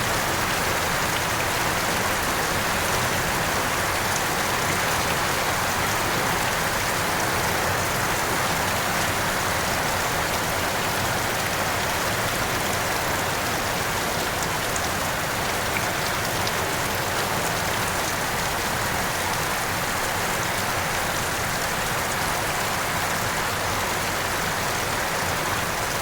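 Heavy rain falling steadily, a constant downpour hiss with no let-up.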